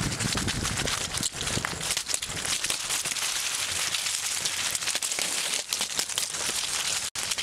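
Dry fallen leaves rustling and crackling steadily, a crisp crunching hiss, cutting out briefly near the end.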